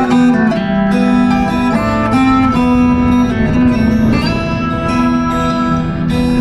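Instrumental introduction to a Cossack folk song: plucked strings over steady held notes, with no singing yet.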